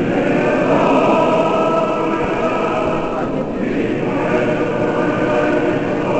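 Orthodox church choir singing a liturgical chant, several voices holding long, steady notes together, with a brief break in the higher voices about three and a half seconds in.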